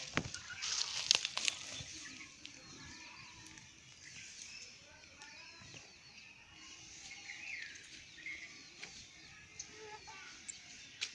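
Small birds chirping: many short, high chirps, busiest and loudest in the first couple of seconds with a few sharp clicks, then fainter and more scattered.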